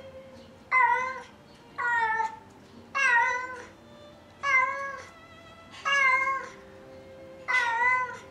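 Domestic cat meowing repeatedly: six loud, drawn-out meows, one about every second and a half.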